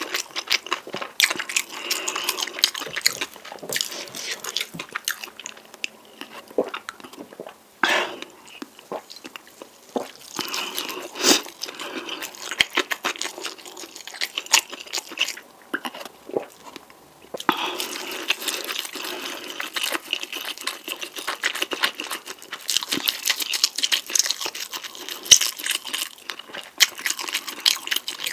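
Close-miked eating sounds of spicy noodles: chewing, slurping and biting, with many short wet smacks and crunches. Steadier stretches of eating noise come near the start and through most of the second half.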